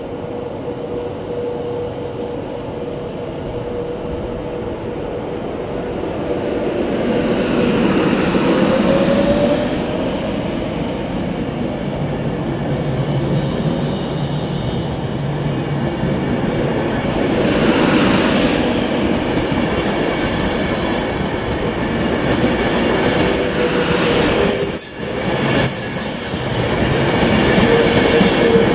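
Virgin Trains Class 390 Pendolino electric multiple unit pulling away from the platform: a steady whine from the traction equipment over the rumble of wheels on rails, growing louder as it gathers speed, with swells as coaches pass close by. Short high-pitched wheel squeals come in the later part.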